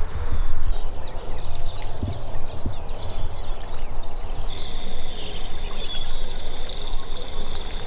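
Wind buffeting the microphone in a low rumble, with small birds singing in quick repeated chirps and, from about halfway, a thin steady high note.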